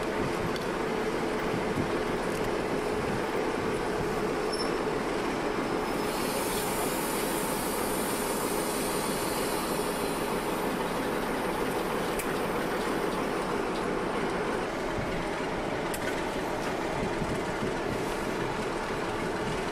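Class 47 diesel locomotive's Sulzer twelve-cylinder engine running with a steady hum as the train draws slowly along the platform, with a high hiss from about six to twelve seconds in.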